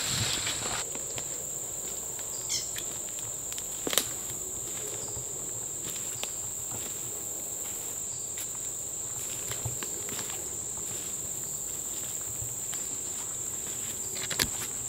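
Steady high-pitched buzz of insects in the swamp woods, with slow footsteps on leaf litter, rustling through brush at the start and a sharp click about four seconds in.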